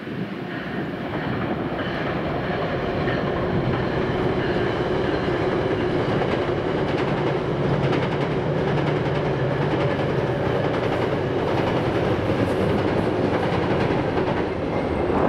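Commuter train of bilevel passenger cars rolling across a steel railroad trestle overhead: a steady rumble of wheels on rail, growing louder over the first few seconds and then holding.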